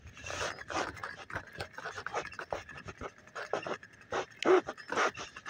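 Rapid, irregular panting close to the microphone, about three breaths a second, with the loudest breaths a little after four seconds in.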